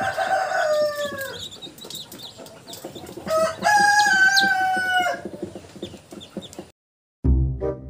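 A rooster crowing twice: a shorter falling crow at the start and a longer, drawn-out crow about three seconds in, over the high peeping of newly hatched chicks. Near the end the sound cuts out and music with a steady beat begins.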